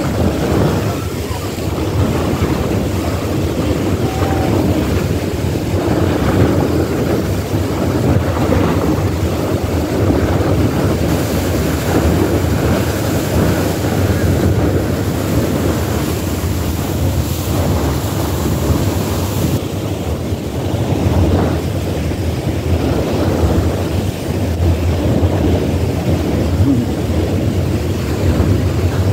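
Wind buffeting the microphone on the open deck of a moving tour boat, over a steady rush of water and the boat's running noise.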